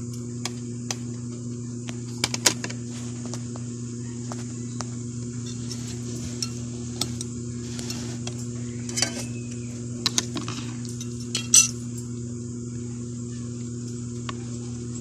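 A spoon clinking and scraping against a soup bowl: scattered sharp clinks, the loudest about two and a half and eleven and a half seconds in, over a steady low electrical hum.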